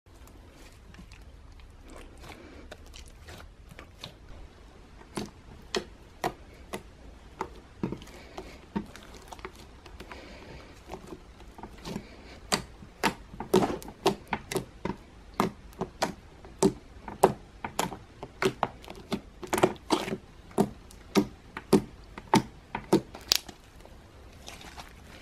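Thick gold slime being stretched, squeezed and folded by hand, giving sharp irregular clicks and pops as air trapped in it bursts. They come sparsely at first and get much more frequent and louder from about five seconds in, over a faint low hum.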